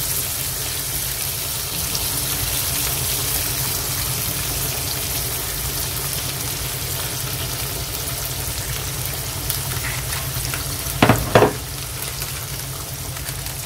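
Tuyo (dried salted fish) cooking in olive oil and vinegar in a wok, with a steady sizzle throughout. Two sharp knocks come near the end.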